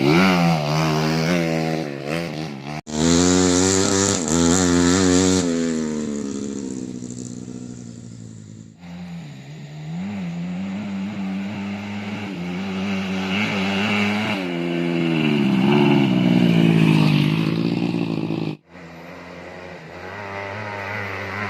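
Tuned 130cc Yamaha Jupiter's single-cylinder four-stroke engine revving hard, its pitch climbing and falling again and again as the throttle opens and closes. The sound breaks off abruptly three times.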